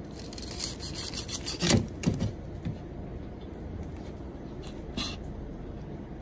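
Kitchen knife slicing through crisp, charred fried chicken thigh: a crackling crunch for about a second and a half, then the blade thuds onto the wooden cutting board a few times, with one more short crunch near the end.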